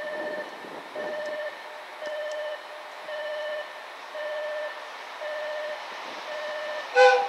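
An electronic beep repeating about once a second, each beep about half a second long. About seven seconds in comes a short, loud blast of the KiHa 261 series diesel train's horn, the loudest sound, followed by a brief hiss.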